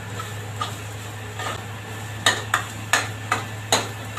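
A steel ladle scraping and clinking against a steel kadai as a thick sauce-and-vegetable mixture is stirred. There are irregular sharp knocks, most of them in the second half, over a steady low hum.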